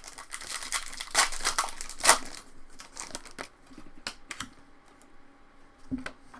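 Foil trading-card pack wrapper crinkling loudly as it is handled and torn open, with a few crisp crackles about a second and two seconds in. After that come a few light clicks and taps as cards are handled.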